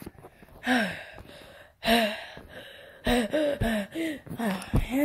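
A child's voice making breathy gasps, two of them with a falling pitch, then a quick run of about six short wordless voiced sounds.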